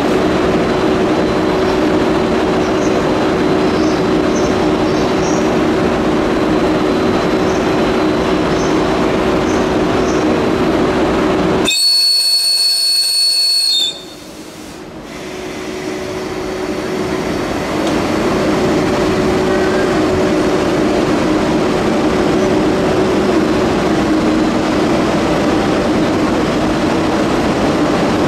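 Steady rail noise of an EF81 electric locomotive and its train of 205 series cars at the platform, with a short, high-pitched whistle blast from the locomotive about twelve seconds in, lasting about two seconds: the departure whistle. Right after the whistle the sound drops sharply and then builds back up as the train moves off.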